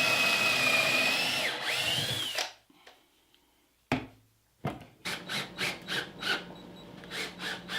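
Power drill running at a steady high whine as it bores a hole into the end of a wooden shelf, its pitch sagging under load before it stops about two and a half seconds in. Then two sharp knocks, followed by a run of short rubbing strokes, about two or three a second, near the end.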